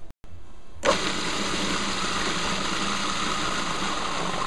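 Food processor switched on about a second in, its motor and blade running steadily as they puree garlic, ginger and onions.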